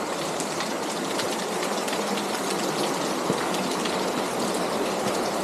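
Small stream running into a cave: a steady rush of water with small splashes throughout.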